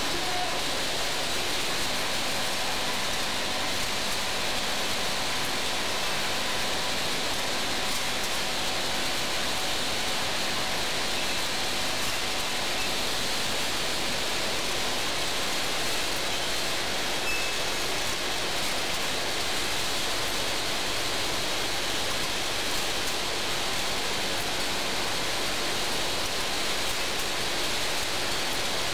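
A steady, even hiss with a faint hum underneath, unchanging and with no rhythm or separate strokes.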